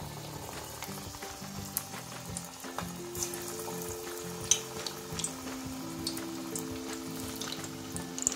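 Onion pakora batter frying in hot oil in an aluminium kadhai: a steady sizzle with scattered sharp crackles as batter pieces go into the oil.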